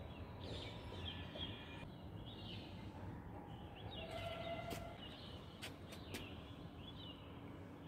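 Faint outdoor ambience with small birds chirping now and then. A few sharp clicks come about five to six seconds in.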